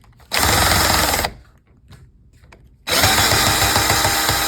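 Power drill running in two bursts, a short one and then a longer one, spinning up and winding down each time while it is used on a stuck part of an old door lock that will not come out.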